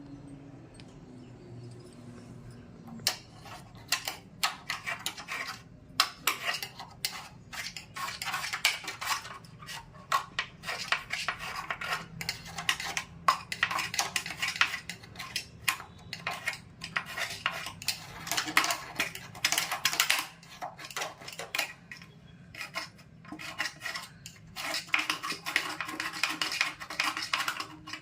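A metal spoon scraping and clinking along a sliding window track in rapid, irregular strokes, starting about three seconds in.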